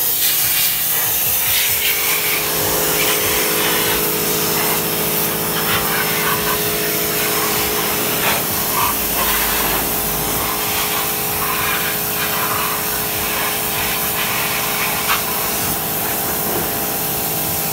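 Electric pressure washer running: a steady hiss of the water jet spraying onto the car's bare sheet metal, over an even hum from the washer's motor and pump.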